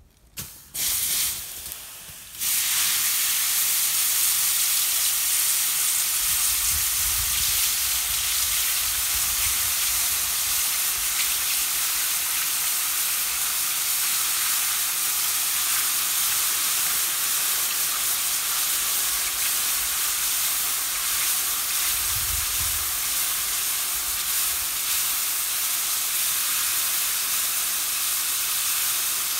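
Molten copper being poured from a crucible into a steel ingot mold, giving a steady loud sizzling hiss after a couple of brief bursts in the first two seconds.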